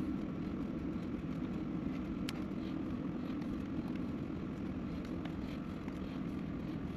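A steady low hum, with a few faint small clicks from wires being worked into a plastic junction box.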